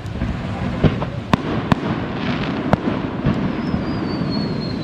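Fireworks going off: several sharp bangs spaced about half a second to a second apart, and near the end a whistle falling slowly in pitch. Under them runs a steady hiss of heavy rain.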